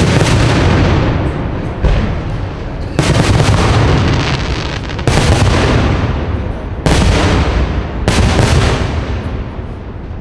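Aerial firework shells bursting overhead: about six loud booms one to two seconds apart, each trailing off in a long rolling echo.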